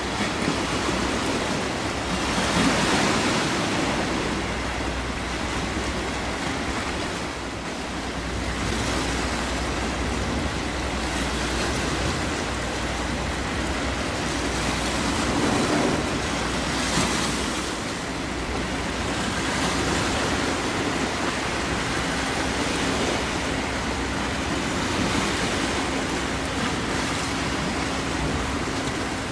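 Waves washing at the water's edge, swelling and easing every few seconds, over a steady low hum.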